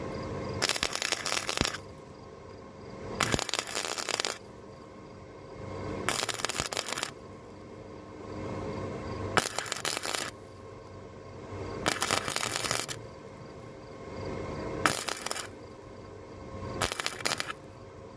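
Harbor Freight 125 flux-core wire welder laying short stitch welds on old truck sheet metal: about seven bursts of arc crackle, each about a second long, with pauses of a second or two between them. A steady hum carries on through the pauses.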